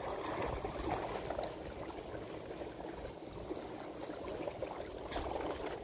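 Water trickling and sloshing: a steady, noisy wash with a low rumble underneath.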